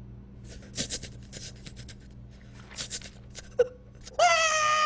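Scattered soft clicks and rustles from cartoon sound effects and a short vocal blip, then about four seconds in a cartoon character breaks into a loud, high, steady crying wail.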